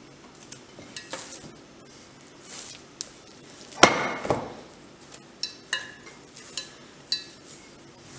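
Metal slotted spatula clinking and knocking against an iron kadai while a poori is pressed and lifted from the oil; one loud ringing clang about four seconds in, then several lighter knocks.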